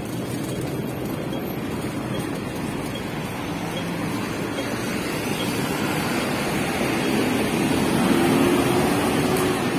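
Road traffic on a busy city street: a steady rush of passing vehicles. It grows louder toward the end as a minibus engine passes close by.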